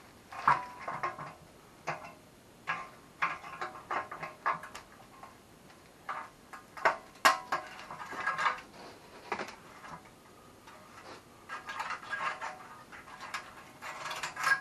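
Hand tools clinking and scraping against the steel pipe and fittings of an ATV exhaust, in irregular clusters of sharp metallic clicks with a brief ring, the sharpest a little past the middle.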